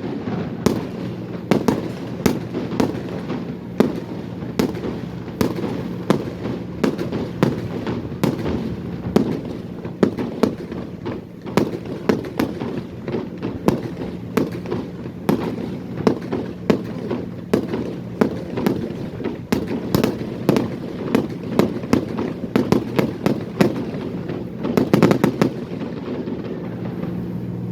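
Fireworks display: a rapid, continuous run of bangs and crackles, several a second, with a denser volley about 25 seconds in, over a steady low hum.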